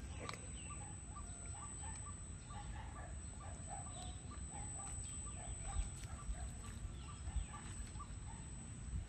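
A steady run of short, repeated animal calls, several a second, over a low rumble, with a couple of louder thumps about two-thirds of the way in.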